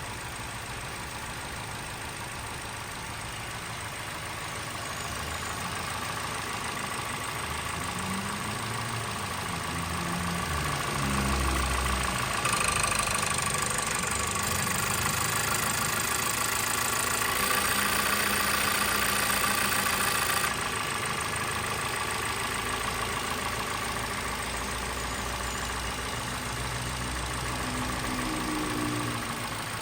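Engine of a 2023 Toyota Corolla XEi running, with a steady high whine and a shifting low rumble. There is a louder, hissier stretch from about twelve to twenty seconds in. The owner reports it as a strange noise in the engine.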